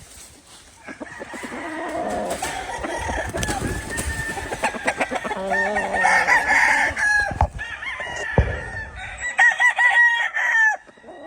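Gamefowl roosters crowing, several long crows overlapping one another, with clucking among them and a few shorter calls near the end.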